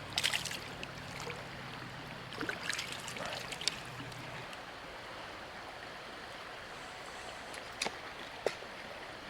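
Creek water running in a steady rush, with short splashes: a cluster at the start, more between about two and a half and four seconds in, and two sharp ones near the end.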